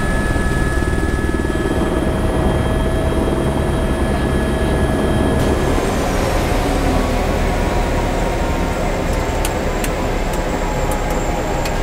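Airbus tour helicopter's turbine and rotor running steadily, heard from inside the cabin as it sets down. About halfway through, the engine tones slide downward as power comes off on the ground. A few light clicks near the end come from cockpit switches being flipped.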